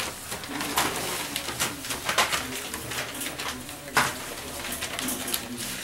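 Young French bulldog puppies grunting and whimpering in short low calls while they jostle, with sharp crackles of newspaper under their paws about three times.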